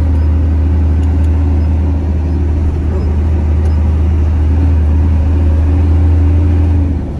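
Truck engine drone and road noise heard from inside the cab while driving: a loud, steady low hum with a constant higher tone above it.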